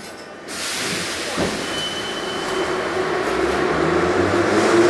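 Moscow Metro train running beside the platform, starting abruptly about half a second in with loud rail and wheel rush. Near the end a low motor whine rises in pitch as the noise grows, as the train picks up speed.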